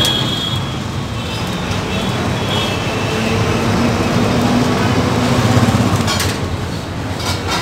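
Steady street traffic rumbling, with an engine tone rising out of it briefly midway and a couple of short knocks near the end.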